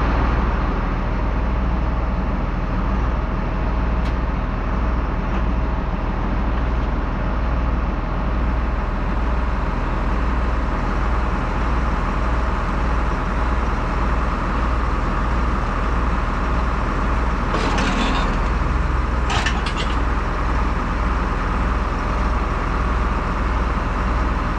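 A large engine running steadily at an even speed, with a low throb and a steady hum. Two short rushing noises come through about 18 and 19 seconds in.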